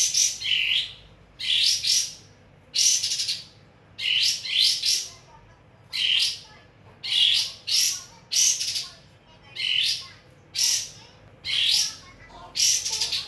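Pied triller (kapas tembak) calling over and over: short, high-pitched chattering phrases repeated about once a second.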